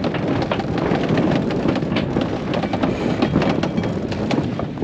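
A sailboat's sheet winch being cranked by hand, its pawls clicking in quick, irregular runs, over a steady rush of wind and water along the hull.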